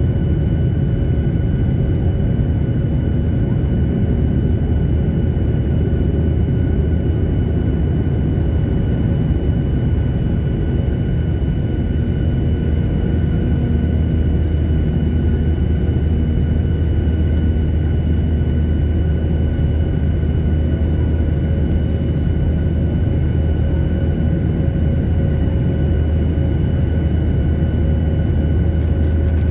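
Cabin noise of a Boeing 737-800 at climb power just after takeoff, heard from a window seat beside its CFM56-7B engine: a steady low rumble with constant high whining tones from the engine.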